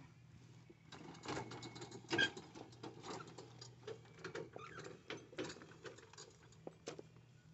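Scattered light clicks and scuffs at an uneven pace, the sharpest about a second and two seconds in, over a faint steady low hum.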